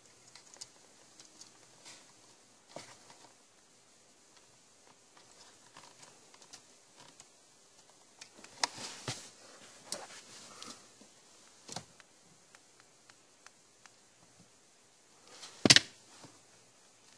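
Fingers working a replacement blade fuse into a car's dashboard fuse box: scattered faint plastic clicks and taps, with one sharp click near the end, the loudest.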